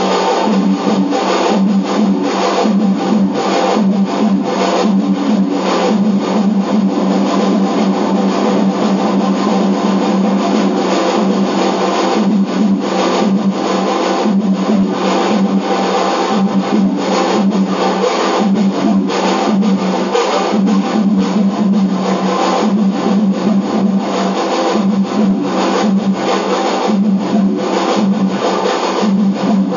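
Guitar-led background music over the steady running noise of a moving train.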